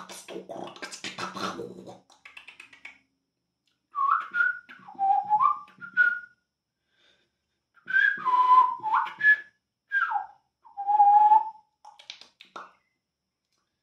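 A man whistling short, sliding notes that rise and fall in a wandering, wordless light language phrase, with gaps between the phrases. Breathy hissing mouth sounds come first.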